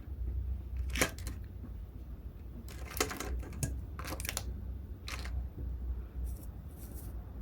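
Crab shells being cracked and pulled apart by hand: a series of short, sharp crackling snaps, the busiest stretch around three to four and a half seconds in, over a low steady hum.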